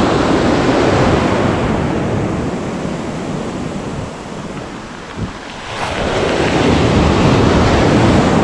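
Sea surf breaking and foam washing over the shallows, with wind buffeting the microphone. The wash eases about four seconds in, then a new wave comes in about six seconds in.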